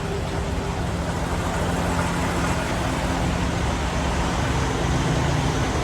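Semi-truck's diesel engine running steadily at low speed with road and lot noise, a constant low hum.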